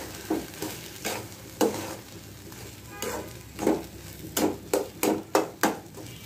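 A spoon scraping and knocking in a pan while stirring a thick, nearly done milk-and-bread kheer filling on the stove, with a series of short strokes that come quicker, about three a second, near the end.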